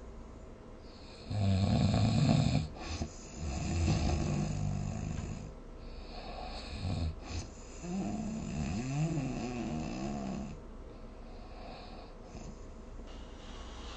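A sleeping person snoring: loud rasping snores about a second in and again around four seconds, a short one near seven seconds, then a longer snore with a wavering pitch that slides up and down. It quietens toward the end.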